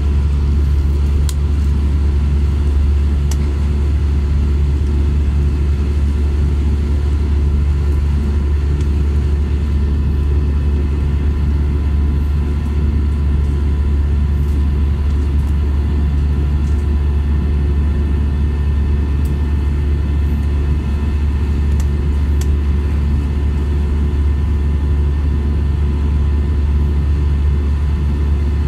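Airbus A320-200 cabin noise in flight: a loud, steady, deep rumble of engine and airflow, with faint steady whining tones above it.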